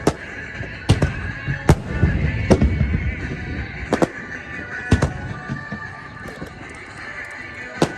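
Aerial fireworks shells bursting in a string of sharp bangs, about six in eight seconds, some followed by a low rumble, over music playing from loudspeakers.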